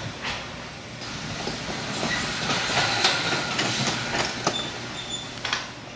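Alpine coaster sled running along its tubular steel track, the wheels rumbling and clattering on the rails with short squeaks. It is loudest about three seconds in and falls away near the end.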